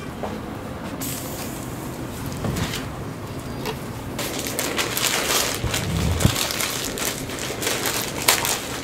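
Crinkling and tearing of a plastic instant-noodle packet in gloved hands: a dense run of crackles through the second half, over a steady background hiss.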